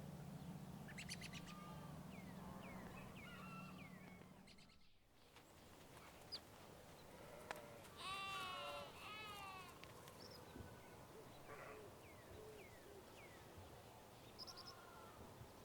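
A goat bleating about halfway through, a couple of quavering calls, while small birds chirp on and off throughout. A low steady hum fades out in the first few seconds.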